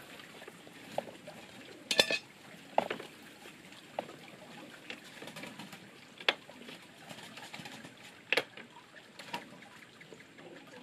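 Hands working at a bamboo fence: scattered light knocks and clicks a second or two apart, the sharpest about two seconds in and again a little past eight seconds.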